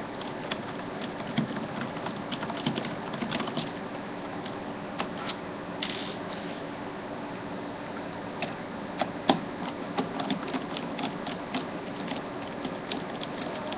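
Small screwdriver backing out screws from a laptop's plastic bottom case: irregular light clicks and scrapes of the bit turning, with a sharper click about nine seconds in.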